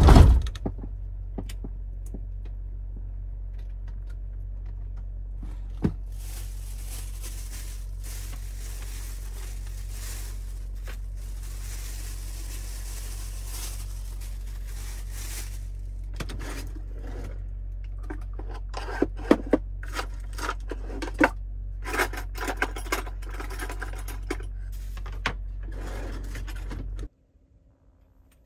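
Food being handled at a wooden kitchen counter: a long stretch of rustling, then a run of sharp clicks, taps and scrapes of dishes and utensils on the worktop, over a steady low hum that cuts off suddenly near the end.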